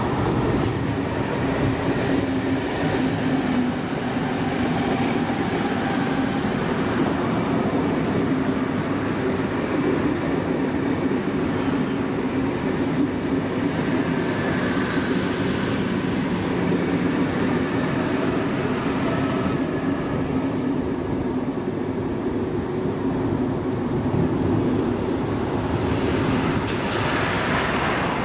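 Double-deck InterCity passenger train passing close by: a steady rumble of wheels on the rails with a low hum, the coaches going by one after another.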